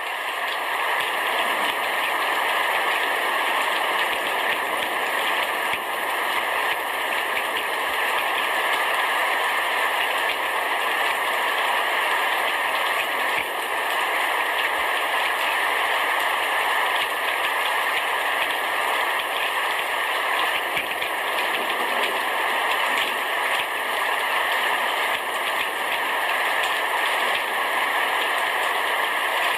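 Downpour of rain falling steadily on a roof, an even hiss with no let-up.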